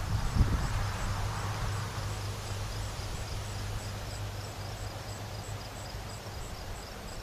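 Outdoor ambience: insects chirping high and evenly, about two or three chirps a second, over a steady low rumble. No siren is sounding.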